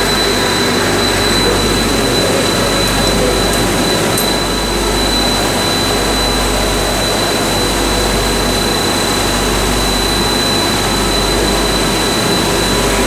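Loud, steady industrial machinery noise: a dense, even drone with a constant high-pitched whine running through it.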